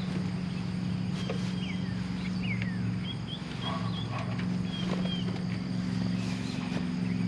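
Short high bird chirps and a few lower calls over a steady low engine hum.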